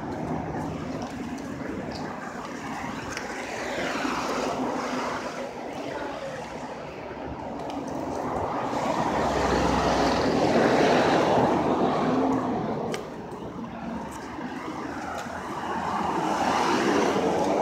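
Road traffic: cars passing on a road with a steady background hiss. The sound swells twice as vehicles go by, loudest around ten seconds in with a low rumble.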